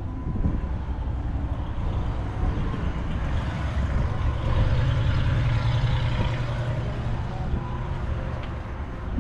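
A vehicle engine running with a low rumble, growing somewhat louder in the middle and then easing off.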